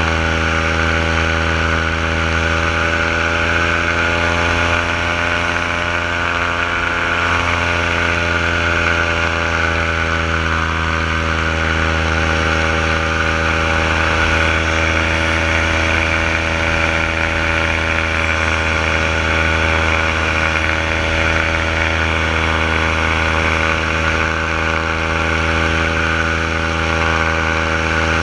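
Paramotor engine and propeller running steadily in level flight, a continuous drone whose pitch wavers slightly a few seconds in, then holds.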